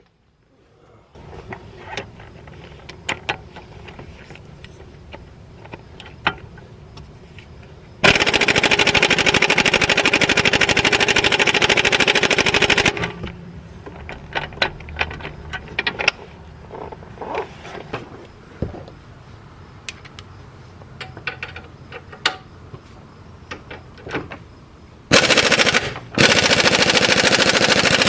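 Hart half-inch pneumatic impact wrench hammering on strut bolts: one long burst of about five seconds, then two shorter bursts near the end. Between the bursts there are metallic clinks and clanks of the socket and tools.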